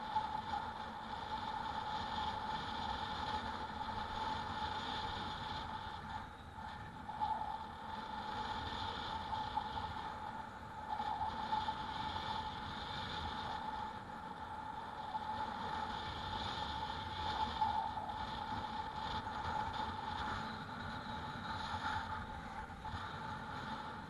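E-bike in motion on the road: a steady high whine over wind and tyre rumble.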